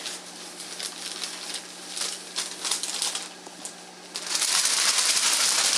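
Newspaper being crinkled and rustled: soft, scattered crackles for about four seconds, then a loud, dense crinkling starts up again near the end.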